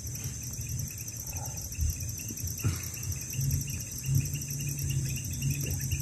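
Steady, high-pitched pulsing chorus of insects, with a low rumble underneath.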